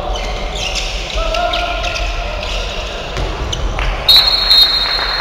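Handball being played on a wooden court in an echoing sports hall: the ball bounces and feet knock on the floor. About four seconds in, a loud, high, steady referee's whistle blast cuts in for about a second.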